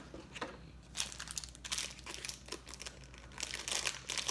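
Plastic candy wrapper crinkling as it is handled and opened: a run of quick crackles starting about a second in, getting louder near the end.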